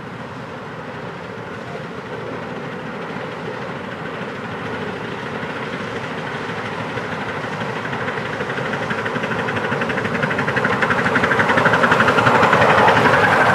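A miniature passenger train double-headed by two steam locomotives, a 4-4-2 Atlantic and a 4-8-4, running toward the listener and growing steadily louder as it approaches. A fast, even beat becomes clear as it draws close near the end.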